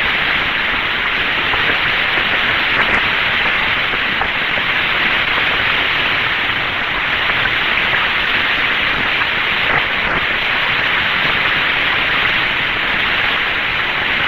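Steady, even static hiss on the Friendship 7 Mercury capsule's audio recording, dull and with no high end.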